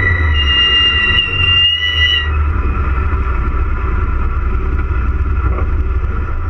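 Cabin sound of a Mitsubishi Lancer Evolution VI rally car under way: a deep, steady drone and road rumble. A high whine is heard over it and fades out about two seconds in.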